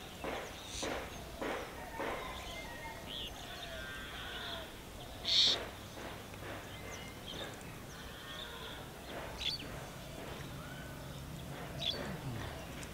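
Birds calling and chirping at intervals over rural outdoor background noise, with a sharp chirp about five seconds in as the loudest sound. Brief rustles of grass and stems near the start come from hands working in the bankside vegetation.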